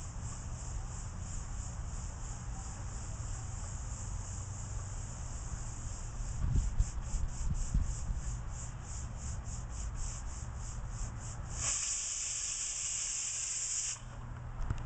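A small backyard vent nicknamed 'Old Faithful' that blows about every 45 seconds, building up: a high hiss pulsing a few times a second that quickens, then a strong steady blast of hiss for about two seconds that cuts off suddenly. Some low rumbling partway through.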